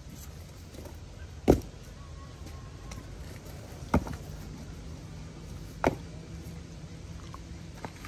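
Rocks being dropped and packed into place, giving three sharp knocks about two seconds apart and a fainter one near the end. Under them an engine idles with a low steady hum.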